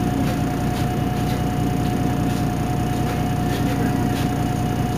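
MAN NL223 city bus's diesel engine idling at a stop: a steady low rumble with a steady high-pitched whine over it.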